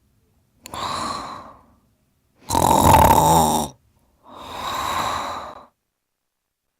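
Snoring: three noisy breaths about a second long each, the middle one the loudest, then a pause of about two seconds.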